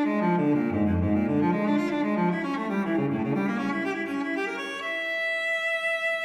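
Background instrumental music led by low bowed strings: a run of quick-moving low notes that settles onto a long held note near the end.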